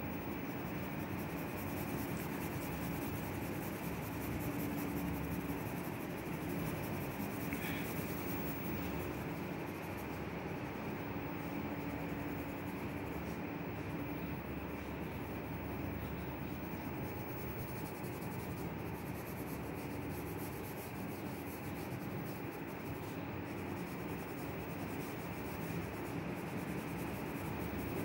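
Graphite pencil scratching and rubbing continuously on drawing paper as a portrait is shaded, over a faint low hum.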